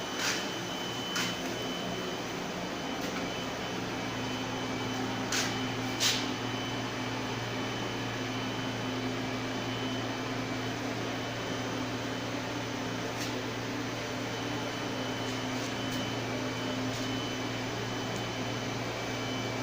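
Steady mechanical hum and hiss of a running motor or fan, with a few sharp clicks in the first seconds and two more around five to six seconds in.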